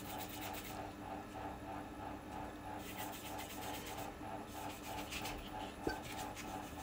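Valve being lapped by hand into its seat in a Toyota 3UZ V8 cylinder head: the valve face grinds against the seat through fine grinding paste as the lapping stick is spun back and forth, a soft scraping pulse of about four strokes a second. The note is the one that changes as the seat gets nice and smooth. A single small knock comes near the end.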